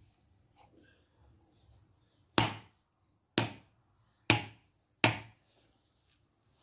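Four sharp knocks, about a second apart, as a dry coconut's shell is struck hard to crack it open.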